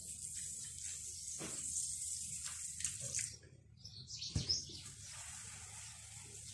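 Water poured in a thin stream from a stainless steel kettle onto dry couscous grains, a steady hissing trickle that stops about three seconds in. A single knock a second later, then the soft rustle of fingers rubbing the dampened couscous in the glazed dish.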